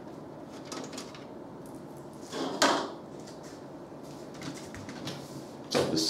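Handling of a computer tower case: a few faint clicks, then one sharp knock about two and a half seconds in as the case is laid on its side on the table.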